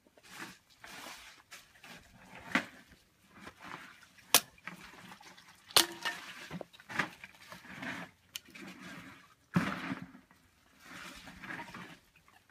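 Firewood being handled and split into kindling: several sharp wooden knocks and clacks, spaced irregularly, with rustling and scraping of sticks in between.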